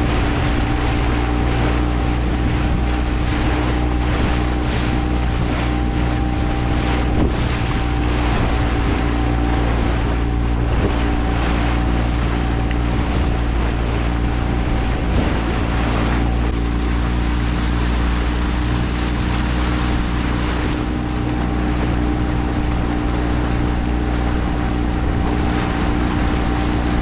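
A small motorboat's engine running steadily with a constant drone, over the splash and rush of water along the hull and wind buffeting the microphone.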